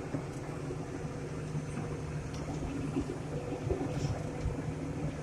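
John Deere 8770 four-wheel-drive tractor's diesel engine running steadily under load while it packs silage, heard from inside the closed cab.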